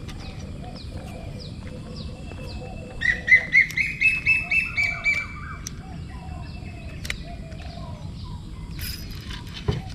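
Wild birds calling outdoors: a quick run of loud chirps about three seconds in, lasting a couple of seconds, over repeated thin high falling notes and other scattered calls, with a faint low background hiss.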